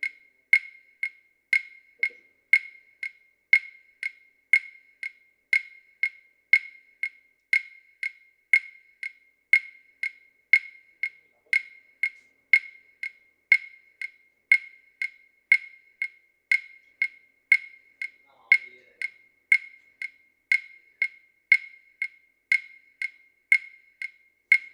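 Steady rhythmic clicking, about two sharp, identical clicks a second, all at the same pitch, keeping an even beat throughout.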